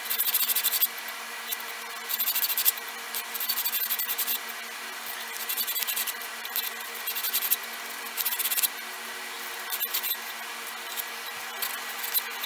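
Hand sanding with 100-grit sandpaper over a wooden knife handle and its peened brass pins: bursts of quick back-and-forth rasping strokes, each run lasting about a second, with short pauses between.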